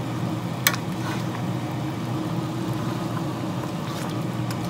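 Slotted metal spoon stirring a thick oxtail stew in a stainless steel pot, with one sharp clink against the pot under a second in, over a steady low hum.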